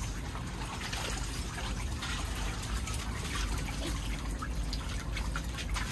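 Shallow water sloshing and splashing as several dogs wade around in a portable pool.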